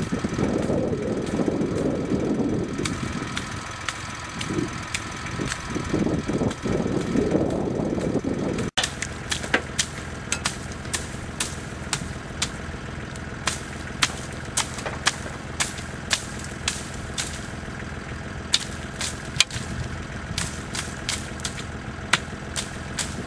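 Siromer (Jinma) compact diesel tractor idling steadily. It is louder with a rushing noise over the first eight seconds, and from about nine seconds in, many sharp, irregular clicks and taps: almonds dropping onto the net and into the trailer as the tree is knocked.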